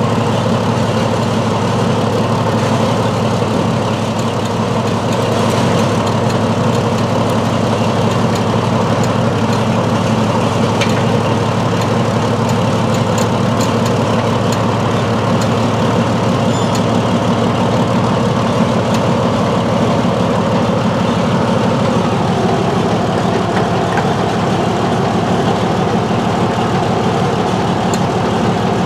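Northwest 80D crane's engine running steadily while it holds a suspended load, with a few light ticks over it.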